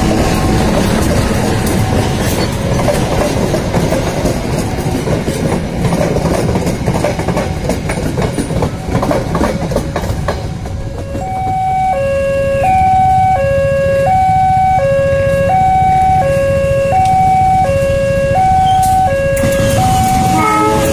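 Passenger train coaches rolling past close by, a steady rumble with wheel clicks over the rail joints. About halfway through the rumble fades and a two-tone alarm takes over, stepping between a high and a low note about once a second.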